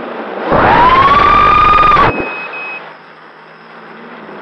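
ZMX Fusions 2206 2300kV brushless motors of an FPV racing quadcopter, spinning DAL 5040 three-blade props, spool up about half a second in to a loud high-pitched whine. The whine holds a steady pitch, then cuts off suddenly about two seconds in, leaving a quieter low hum.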